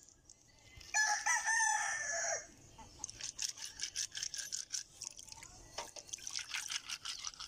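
A rooster crows once, loudly, about a second in, ending on a falling note. After that comes a rapid run of splashes and clicks: freshwater snails being rubbed and swished by hand in a basin of water, their shells knocking together.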